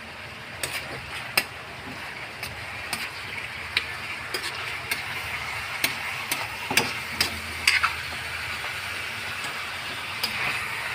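Chicken pieces sizzling in a pan while a spatula stirs and turns them, with irregular scrapes and knocks of the spatula against the pan over a steady frying hiss.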